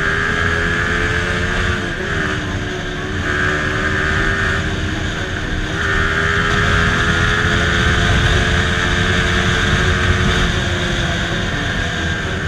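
Yamaha MT-15's 155 cc single-cylinder engine running under way, its pitch rising and dipping slightly as the throttle changes, with wind rushing over the microphone.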